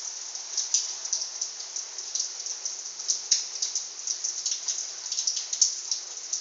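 Small dog eating from a dish on the floor: a quick, irregular run of small clicks from its mouth working the food, several a second.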